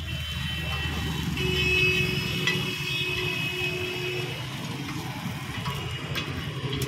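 A motor vehicle engine runs close by with a steady low rumble. A metal spatula clicks against the iron griddle a few times, and a held tone sounds for about three seconds from about a second and a half in.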